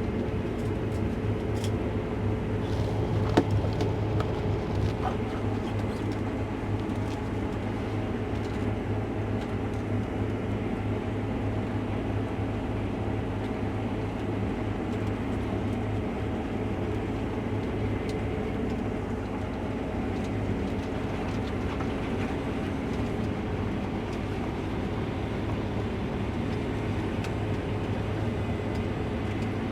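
Case IH Axial-Flow combine running steadily while harvesting, a constant low machine drone. A single sharp click a little over three seconds in.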